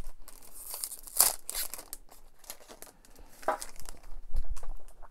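Plastic trading-card pack wrapper being cut and torn open with a knife, crinkling and tearing in bursts about a second in and again near the end.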